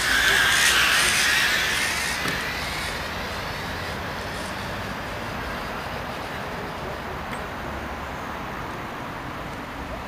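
Zip-line pulley running along a steel cable: a loud whirring hiss for the first two seconds that then fades. A steady low background hiss follows.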